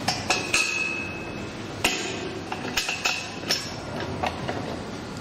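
Metal clinks and taps as screws are fitted through a traffic-light mounting bracket against its pole, one strike near the start ringing on for about a second. Sharp knocks follow about two seconds in and several more toward the end.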